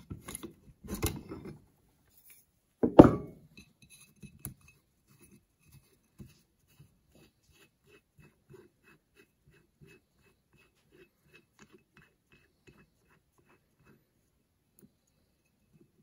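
Metal hand tools clinking against each other as a wrench is picked out, with one loud clank about three seconds in, then only faint scattered metallic ticks.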